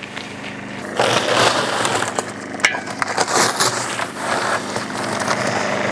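Dry concrete mix pouring from a bag into a YardMax electric cement mixer's drum, a gritty rushing rattle that starts about a second in, over a steady motor hum.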